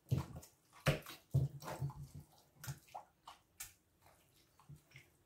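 Hands mixing raw mutton with salt, spices and oil in a pot: a run of short, wet squelches and knocks against the pot.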